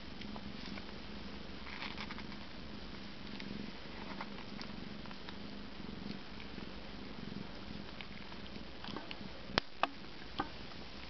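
Siamese mother cat purring steadily as her newborn kittens nurse, with a few sharp clicks near the end.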